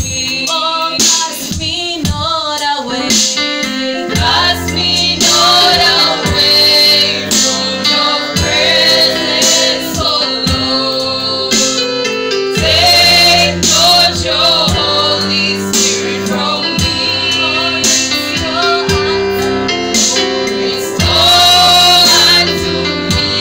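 Gospel song: voices singing over instrumental accompaniment, with a low bass line coming in about four seconds in.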